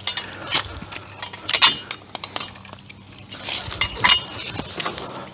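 Metal clinks and rattles at irregular intervals as a ratchet strap's steel hook and ratchet are handled and hooked onto a tractor's three-point hitch.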